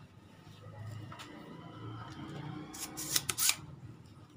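Light clicks and scrapes of hands handling a CRT TV's circuit board, bunched about three seconds in, over a faint low hum.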